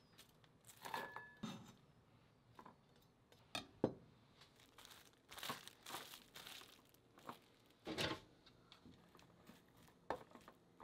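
Plastic cling wrap crinkling and tearing as it is pulled and pressed over a glass bowl, with a few sharp clicks and knocks of handling.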